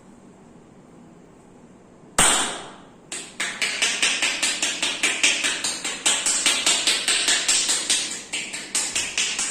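Hands striking in rapid percussive massage (tapotement): one loud slap about two seconds in, then a fast, even run of sharp slaps, about six a second.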